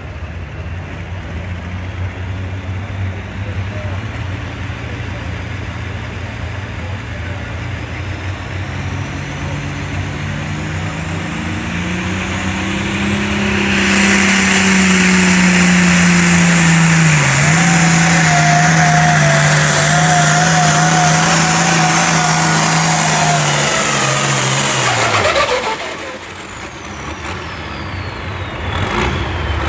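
International pulling tractor's 466 diesel engine under full load pulling a sled: it builds from a rumble to a loud, steady hard pull about halfway in, its pitch sags briefly once, then it cuts off abruptly near the end as the pull finishes.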